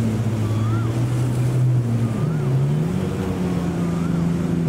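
Street traffic with motor engines running steadily, the main engine note dipping and then rising to a higher pitch about two seconds in. A short high chirp repeats about every second and a half over the traffic.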